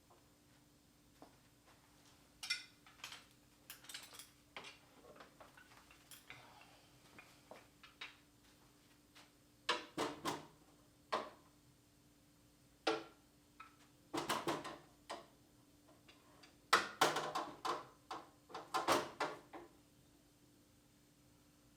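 Metal hand tools clinking and clattering as they are handled and set down one after another, in irregular bursts, loudest in three clusters in the second half.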